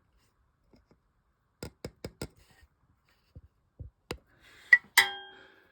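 Handling noises at close range: a quick run of small clicks and a few soft knocks, then a sharp metallic clink that rings briefly as it fades.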